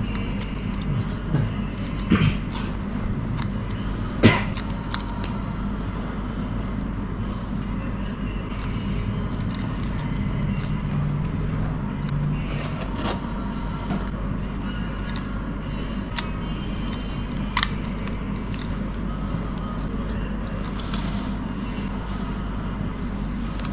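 Scattered small clicks and scrapes of metal parts as a Shimano SLX baitcasting reel is worked apart by hand, the sharpest click about four seconds in, over a steady low background hum.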